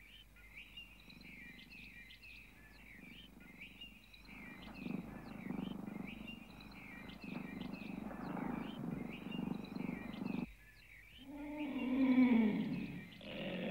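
Birds chirping over and over, with a low, rough animal growl coming in about four seconds in and cutting off abruptly. Near the end comes a louder growl that falls in pitch, from an unseen creature in the dark.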